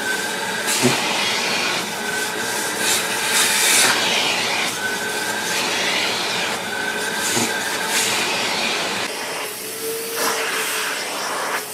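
Vacuum cleaner running, its hose nozzle drawn over a cat's fur, the suction noise swelling and easing as the nozzle moves. About nine seconds in it changes to a different vacuum with a steadier hum.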